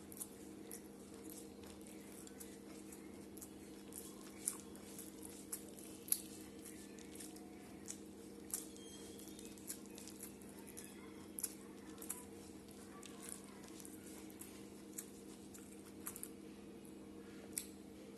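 A person eating rice and curry close to the microphone: soft chewing and squishing, with sharp little mouth clicks about once a second, over a steady low hum.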